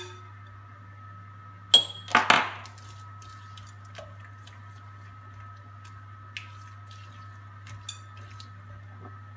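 Sharp clinks against a glass mixing bowl about two seconds in, twice in quick succession, then faint scattered ticks as butter, sugar and salt are mixed by hand in the bowl. A steady low hum runs underneath.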